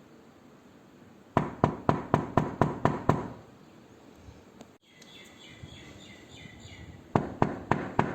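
Knocking on a door: a quick run of about eight knocks at roughly four a second, then, after a pause, a second run of about four more near the end.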